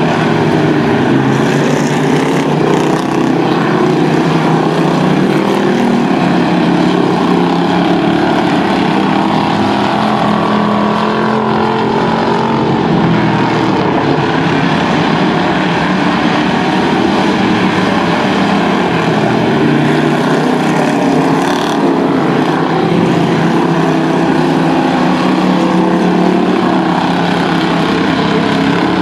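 Several strictly stock dirt-track stock cars racing together: a steady, loud blend of engines whose pitch rises and falls as the cars get on and off the throttle through the turns.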